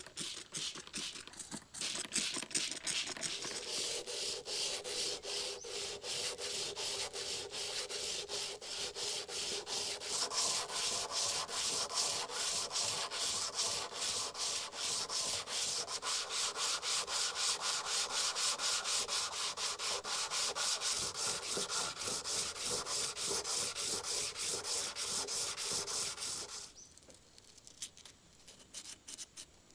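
Steel scissor blade being sharpened on a wet whetstone: steady back-and-forth scraping strokes that stop about 26 seconds in, followed by faint light scraping.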